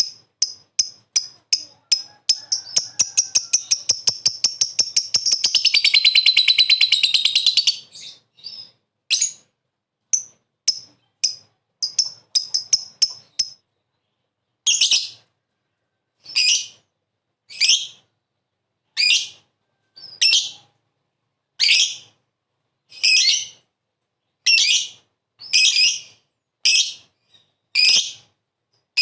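Lovebird vocalising. It gives fast chirps that run together into a long, rapid chattering trill (the 'ngekek'), then scattered sharp chirps, then single high calls repeated about once every second and a half.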